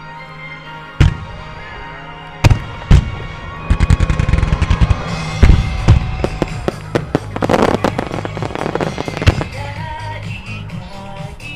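Starmine fireworks shells bursting over music: single bangs about a second in and twice more soon after, then a rapid barrage of bangs and crackling from about four seconds in, densest near the middle.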